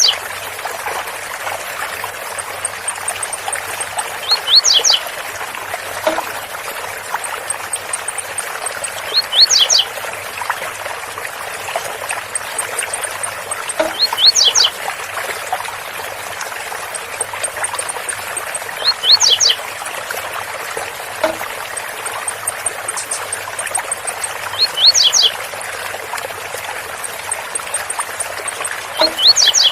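Blue-black grassquit (tiziu) song of the 'zel zel' type: a short high phrase of three or four quick notes, repeated about every five seconds, over the steady rush of a waterfall.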